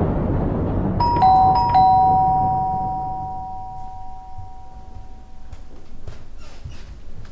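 Two-note doorbell chime rung twice in quick succession, ding-dong, ding-dong, the lower note ringing on and fading away over a few seconds. A few faint clicks follow near the end.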